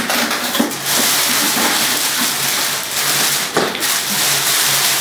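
Clear plastic film rustling and crinkling as it is handled and pulled off a stainless steel kettle, with a few light knocks.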